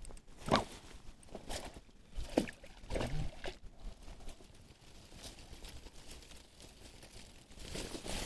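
Dry reed stems crackling and rustling under a kneeling angler, with small water splashes as a hand reaches in to grab a hooked pike; a few sharp crackles stand out in the first four seconds.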